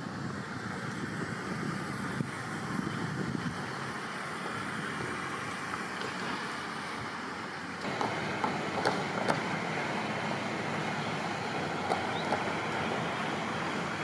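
Steady outdoor rushing noise, changing at a cut about eight seconds in, after which a few faint clicks and knocks sound.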